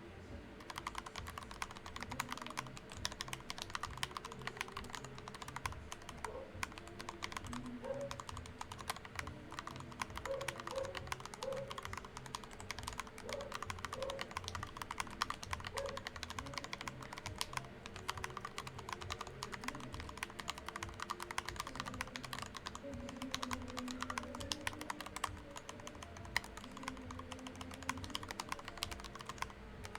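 Continuous fast typing on a 3D-printed Dactyl Manuform split keyboard fitted with lubed Gateron Black Milky Top linear switches: a dense, irregular stream of keystroke clacks. Faint pitched background sounds come and go beneath the typing.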